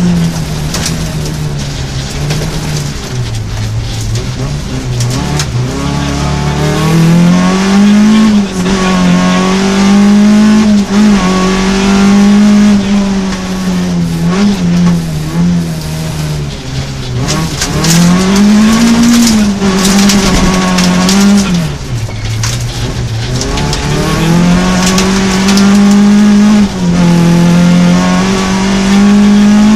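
Rally car engine at hard throttle, heard from inside the cockpit on a gravel stage. The revs climb and drop again and again through gear changes, dipping as it lifts for corners. Scattered clicks and rattles from gravel hitting the car run through it.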